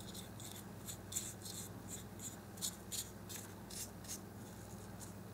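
Small paintbrush stroking paint onto a thin wooden miniature toolbox, a quick irregular run of faint brushing strokes, two or three a second. A steady low hum runs underneath.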